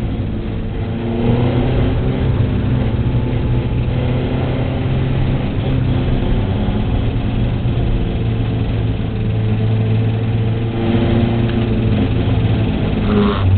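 Race car's engine heard from inside its cabin, running at a moderate, fairly steady speed, with brief rises in revs about a second in and again near the end.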